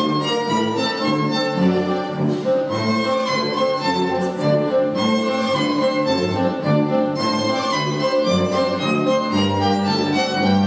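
Instrumental music for strings, with a violin carrying a melody over lower bowed strings, playing on steadily.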